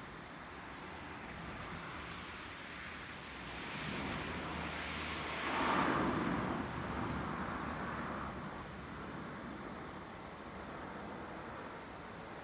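A road vehicle passing, its noise swelling over a few seconds to a peak about six seconds in and then fading, over steady outdoor background noise. No crossing bell is sounding yet.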